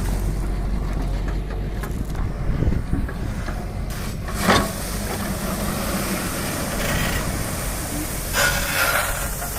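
Heavy diesel machinery running steadily with a low rumble, from an excavator loading a tipper truck with stone. A single sharp clank comes about four and a half seconds in, and a short burst of rattling noise follows near the end.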